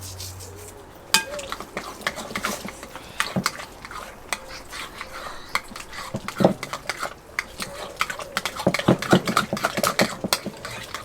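A spoon stirring tzatziki in a bowl, clinking and scraping against it, the clinks quicker near the end; one heavier knock about six and a half seconds in.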